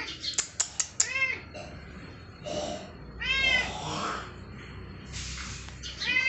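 A domestic cat meowing several times: a short meow about a second in, a longer, louder meow about three seconds in, and another starting near the end. A few sharp clicks sound in the first second.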